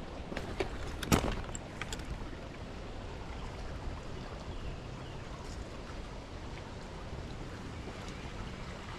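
Steady wind buffeting the microphone in high wind, a low rumbling rush, with a sharp knock about a second in and a few faint ticks.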